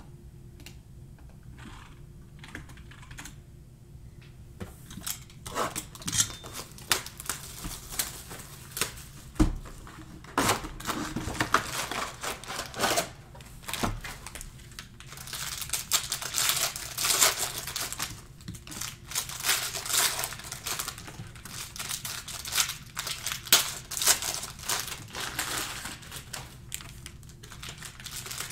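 Plastic trading-card pack wrappers crinkling and tearing as packs are ripped open, with cards handled in between; a few faint ticks come first, and the crinkling starts about five seconds in.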